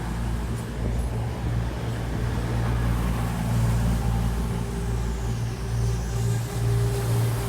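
Class 220 Voyager diesel multiple unit standing at a platform with its underfloor diesel engines idling: a steady low hum, joined about halfway through by a steady higher tone.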